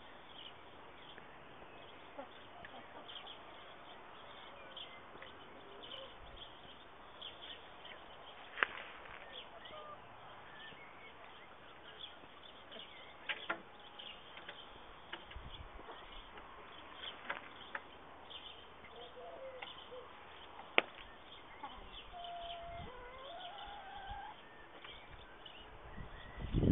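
Outdoor garden background with a domestic hen's soft, short clucks, mostly in the second half, and a few sharp clicks. A low thump comes right at the end.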